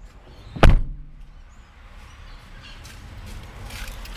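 A car door shutting with a single loud thump about two-thirds of a second in, followed by quiet cabin background.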